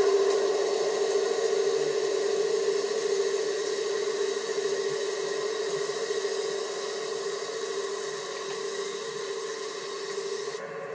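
USA Trains G-scale model freight train running across a steel trestle: a steady hum with a hissing rumble that slowly fades as the train draws away.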